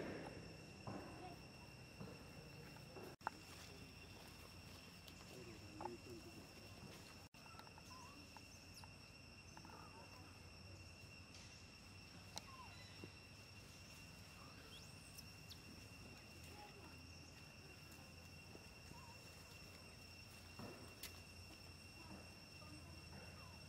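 Faint outdoor ambience: a steady high-pitched hum, with a few faint short chirps scattered through and a couple of soft clicks.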